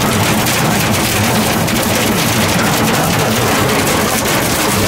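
Hail hitting a vehicle's roof and windshield, heard from inside the cabin: a dense, steady clatter of many small impacts, with a low drone underneath.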